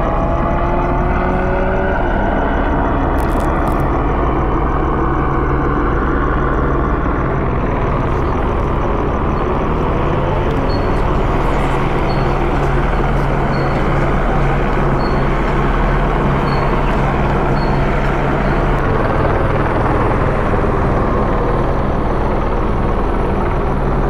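Police helicopter hovering overhead: a steady drone of rotor and turbine engine.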